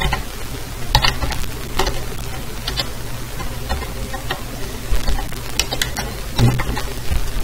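Scattered keystrokes on a computer keyboard, a few short clicks about a second apart, over steady microphone hiss and a low hum.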